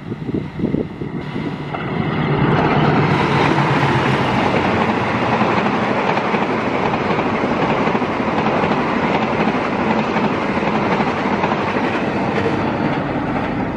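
Argo Cirebon express passenger train passing at high speed close by: the diesel locomotive going by for the first two seconds, then a loud, steady rumble of wheels on the rails as the carriages follow, easing slightly near the end.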